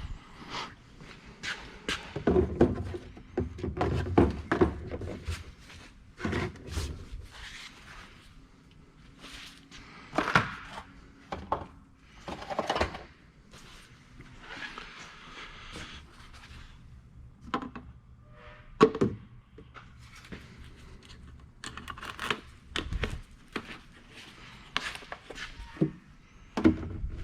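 Scattered knocks, thunks and clicks of a plastic oil jug and funnel being handled while fresh engine oil is poured into the engine, with quieter stretches of faint hiss between them.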